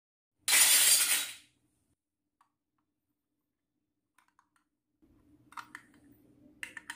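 A loud, brief rushing noise about half a second in, then, from about five seconds in, small plastic clicks and taps as a toy microwave is handled and its door opened, over a faint low hum.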